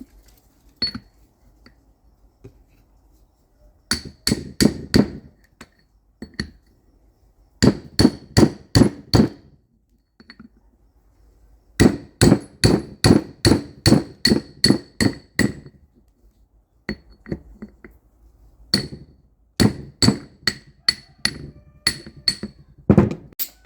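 Hammer striking metal in runs of quick blows, about three or four a second, each blow ringing briefly, with short pauses between the runs and one last loud blow near the end.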